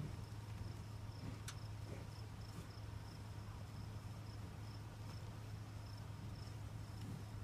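An insect chirping in a steady, high-pitched pulsing rhythm, about two to three chirps a second, over a steady low hum, with a single click about a second and a half in.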